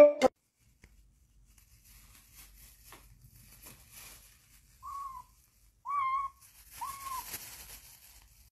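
Kitten giving three short, high mews about a second apart, each rising then falling in pitch, over a faint hiss.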